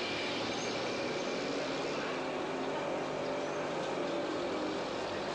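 Steady street traffic noise: car and bus engines running along a busy road.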